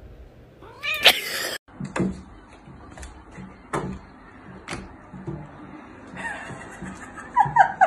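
A short loud rising cry about a second in, then several sharp taps and slaps, roughly one a second, as hands play-swat with a cat whose paws strike back.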